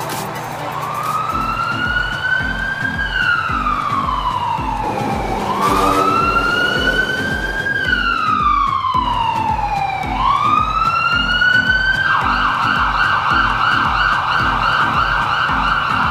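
Electronic siren wailing, its pitch rising and falling slowly twice, then switching about twelve seconds in to a fast yelp. Under it runs a music track with a steady beat.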